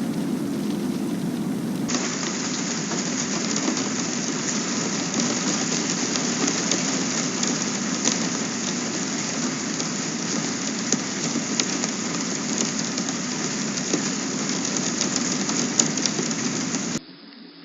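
Steady rain falling, a dense hiss dotted with the patter of individual drops; it cuts off abruptly near the end.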